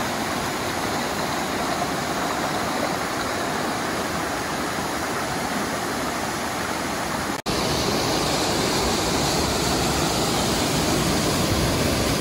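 Water rushing down a rocky mountain waterfall and its cascades, a steady hiss of falling water. It breaks off for an instant about seven seconds in and comes back a little louder.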